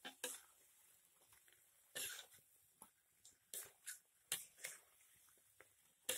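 Spatula scraping and knocking against a wok as chicken in thick spice paste is stirred: short, irregular scrapes, faint, over a low hiss.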